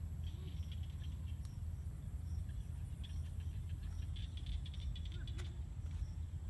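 Steady low wind rumble on the microphone, with faint crackling from a small smoky fire of coals.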